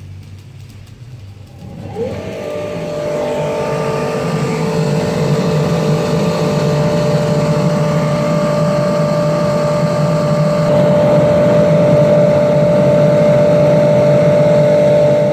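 Electric air blower switched on about two seconds in, its whine rising quickly to speed, then running steadily with a low rush of forced air, feeding the blast into an oil-fired furnace.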